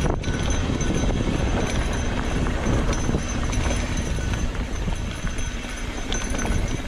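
Mountain bike rolling down a rough dirt trail: a continuous rumble of tyres over dirt and rocks, with the frame and parts rattling from many small knocks.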